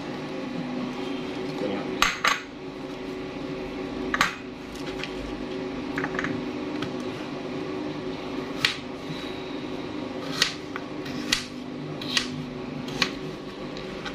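Kitchen knife knocking on a cutting board and potato chunks clinking into a glass bowl as potatoes are cut up: about nine sharp, irregularly spaced knocks over a steady low hum.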